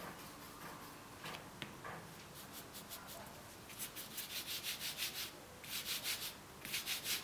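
Hands rolling a ball of fondant between the palms into a cone: quick, rhythmic rubbing strokes of skin sliding over the paste, in bursts that start about two seconds in and grow louder in the second half.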